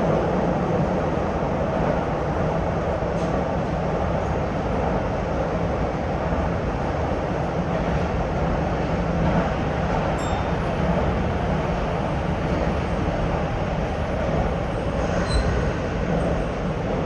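Nagoya subway 5050-series train running through a tunnel, heard from inside the front car: a steady rumble of steel wheels on rail. There are a couple of faint, brief high squeals, about ten and fifteen seconds in.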